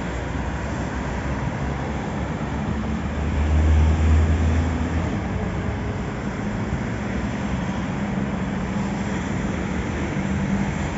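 Maserati MC20's 3.0 L Nettuno twin-turbo V6 running steadily. About three and a half seconds in its note swells louder and deeper for about a second before settling back.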